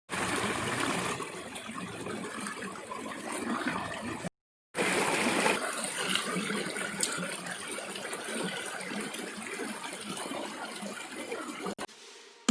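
Water trickling and gurgling, with a short cut to silence about four seconds in.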